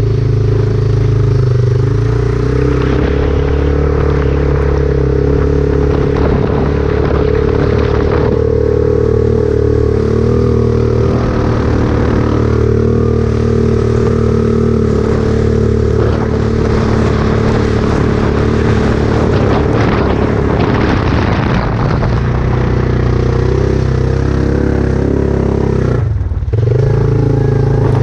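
A vehicle engine running steadily at an even speed, with rattling and scraping over the hum; the sound drops out briefly near the end.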